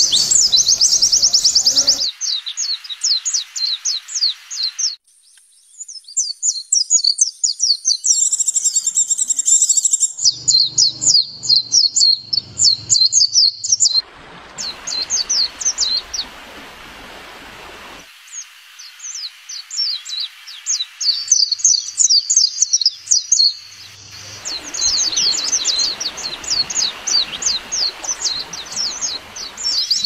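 White-eyes (pleci) singing: fast, high twittering runs of quick chirping notes, in several stretches that change abruptly from one to the next.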